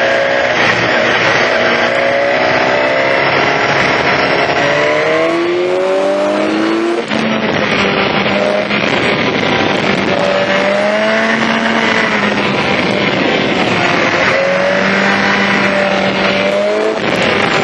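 BMW S1000XR's inline-four engine through an Akrapovic exhaust under way, its pitch climbing for several seconds, dropping sharply at a gear change about seven seconds in, then holding fairly steady revs with another change near the end.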